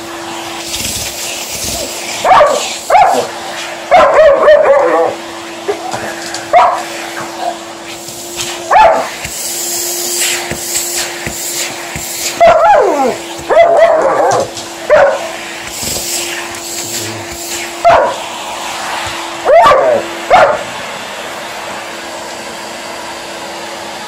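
Alaskan Malamute barking and vocalizing at a running vacuum cleaner in repeated short outbursts, a few sliding down in pitch. The vacuum's steady hum runs underneath.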